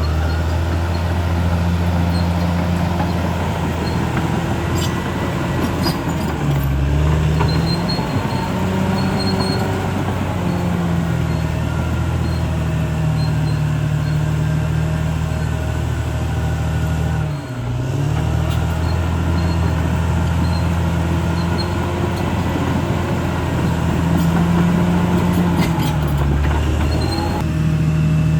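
Caterpillar D6R XL crawler bulldozer's diesel engine working steadily. The engine note shifts several times as the revs change and drops briefly about two-thirds of the way through.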